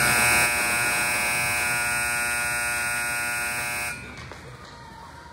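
Scoreboard buzzer sounding one long, steady note for about four seconds, then cutting off.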